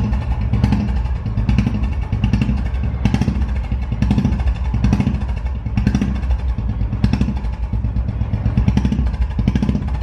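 Royal Enfield Classic 500 single-cylinder engine running at idle through an aftermarket Silmen chrome silencer, not a free-flow type, with a steady, even exhaust beat.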